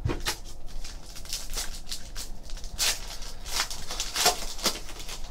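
Foil trading-card pack wrapper crinkling and crackling as it is handled and torn open by hand, with a rapid irregular series of crackles, the loudest about three and four seconds in.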